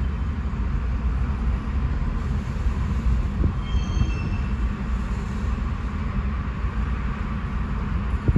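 Freight train's tank cars rolling past, a steady rumble of wheels on rail, with a short high wheel squeal a little before halfway. Heard from inside a car.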